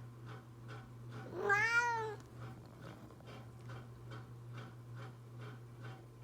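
A domestic cat gives one meow that rises and then falls in pitch, about a second and a half in, followed by a faint, even pulse about twice a second.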